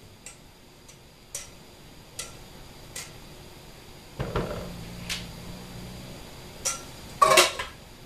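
A spatula tapping and scraping batter off against a glass loaf pan and a metal mixing bowl: a series of sharp clicks and knocks, with a heavier knock about four seconds in and a louder clatter of knocks near the end.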